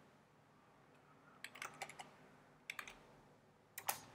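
Light typing on a computer keyboard: a short run of keystrokes about a second and a half in, a few more near three seconds, and another run starting near the end.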